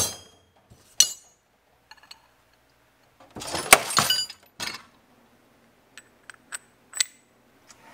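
Steel wrenches and sockets clinking against each other in a toolbox drawer: a sharp clink about a second in, a clatter of handled sockets around four seconds in, and a few light metal taps near the end.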